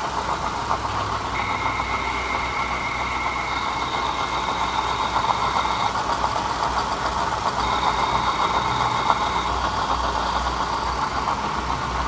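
Mitsubishi Savrin 2.4 engine running steadily at idle. A high, steady whine comes in for a few seconds, stops, and comes back briefly a little later.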